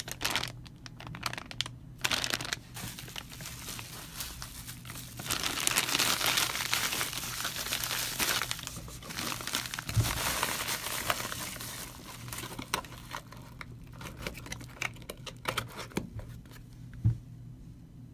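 Clear plastic bags and bubble wrap crinkling as they are handled around a car ignition coil and its cardboard box, loudest in the middle, with two sharp knocks, one about ten seconds in and one near the end.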